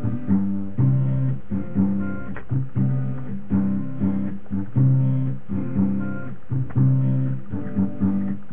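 Intro music: acoustic guitar strumming chords in a steady rhythm.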